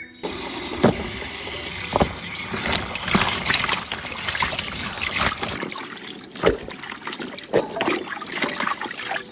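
Water running and splashing while vegetables are washed, with occasional knocks. The water starts suddenly and cuts off at the end.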